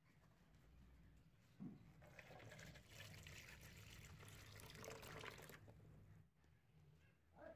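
Liquid poured into a clear plastic tub, a steady pouring and splashing sound lasting about three and a half seconds. A short knock comes just before the pour begins.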